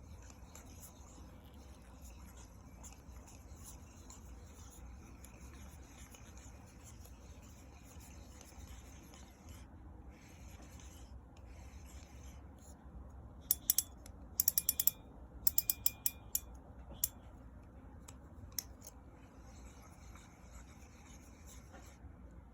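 Shimano 20 Twin Power C5000XG spinning reel cranked by hand, its gearing making a steady shushing "shah-shah" rub that the owner puts down to the reel being brand new. A run of sharp clicks comes from about 13 to 17 seconds in.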